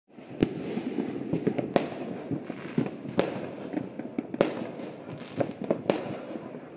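Fireworks going off all over a city: five sharp bangs about one and a half seconds apart over a steady rattle of smaller pops and crackles.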